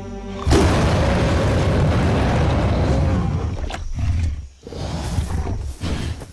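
A gorilla's loud, long roar in a film soundtrack, starting about half a second in and lasting about three seconds, followed by several shorter roaring bursts. A held musical chord cuts off as the roar begins.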